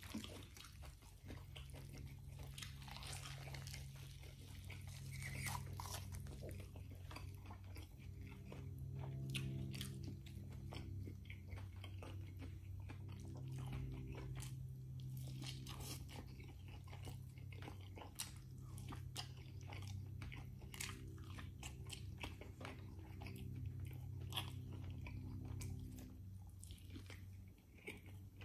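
Close-up eating sounds of a man chewing rotisserie chicken: many small wet clicks of lips and teeth as he bites and chews, over a steady low hum.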